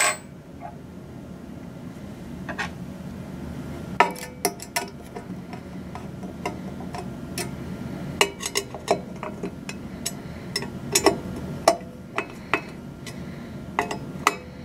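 Phillips screwdriver tightening screws into an antenna feed bracket: irregular light clicks and taps of the tool on the screw heads and bracket, over a steady low hum.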